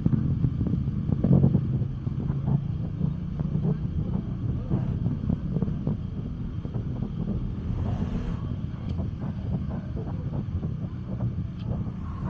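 Night street ambience while walking: a steady low rumble of traffic and wind on the microphone, with light scattered clicks.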